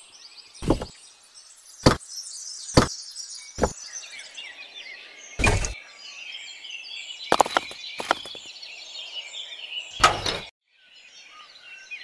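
Birds chirping continuously, with about eight sharp knocks or clicks at irregular intervals, roughly one every second or two. Near the end the birdsong cuts out briefly after a knock.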